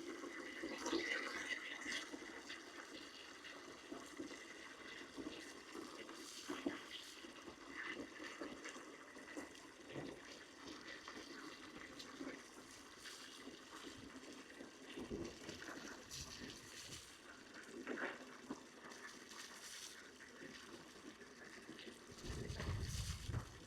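Faint running water, with scattered light knocks and a brief low rumble near the end.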